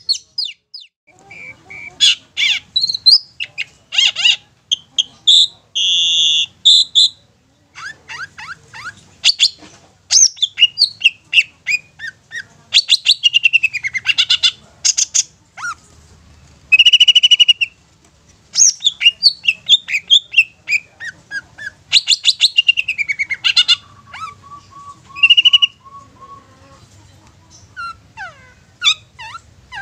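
A long-tailed shrike singing a varied, loud song: fast chattering runs of sharp falling notes broken by a few short held notes. Near the end comes a quick train of low, evenly repeated notes.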